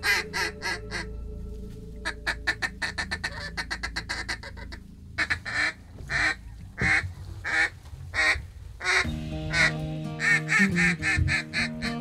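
Mallard duck call blown by a hunter in a series of quacks. First comes a fast run of notes, then a quicker, quieter chatter, then single quacks spaced under a second apart. Music comes in about nine seconds in, under the last quacks.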